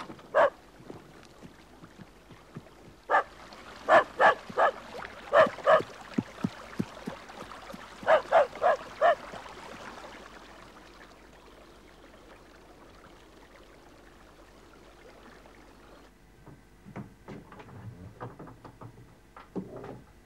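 A dog barking outside a closed door in three short runs of sharp barks, about ten in all, falling quiet about nine seconds in.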